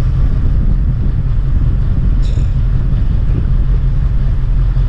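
A fishing charter boat's engine running with a steady, loud low rumble. About two seconds in there is a brief high chirp.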